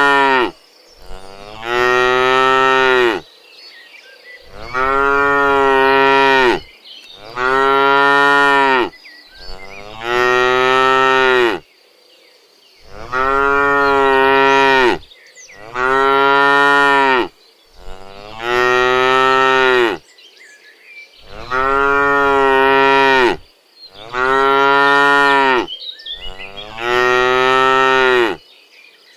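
Cows mooing over and over, calling while they look for food: about ten long moos of roughly two seconds each, one after another with short pauses between.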